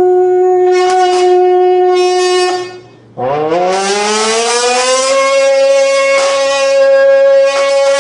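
A voice hummed into an empty beer can, pressed in at the middle, makes the can resonate with a buzzing, horn-like tone. One steady note breaks off about three seconds in, then a second note slides up and holds at a higher pitch.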